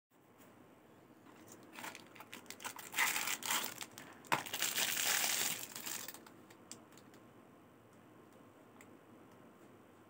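Clear plastic wrap crinkling as it is pulled off a folding knife, in a run of crackles lasting about four seconds, followed by a few faint clicks.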